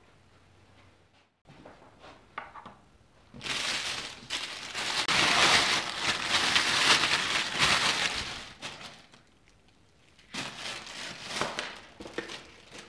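Clear plastic parts bag crinkling as gloved hands handle and open it. There are two spells: a long, loud one from about three and a half to eight and a half seconds in, then a shorter, quieter one near the end.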